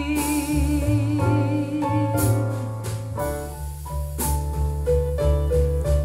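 Jazz ballad played back through a pair of JBL Studio 280 three-way floorstanding loudspeakers and recorded in the room: an instrumental passage of piano over steady bass notes between sung lines.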